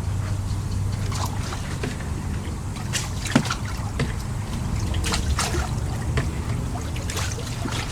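Water trickling and splashing in fish tanks over a steady low hum, with scattered short clicks and splashes.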